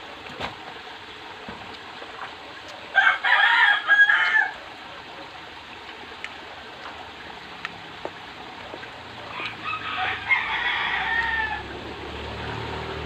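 A rooster crowing twice, about three seconds in and again some six seconds later, each crow lasting a second and a half to two seconds.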